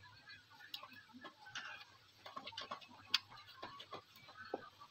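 Faint, irregular small clicks and taps from hands handling wires and parts on an opened amplifier, with one sharper click about three seconds in.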